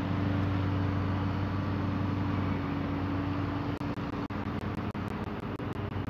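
Steady road-traffic noise, a low rumble with a hum, broken by several brief dropouts in the second half.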